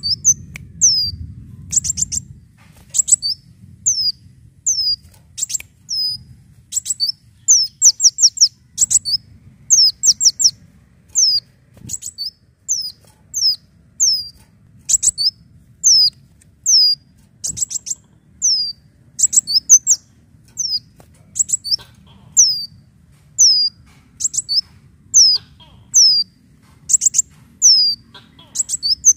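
Sunbird (kolibri daun) calling over and over: short, high, downward-slurred notes about twice a second, mixed with quick clusters of three or four sharp ticks.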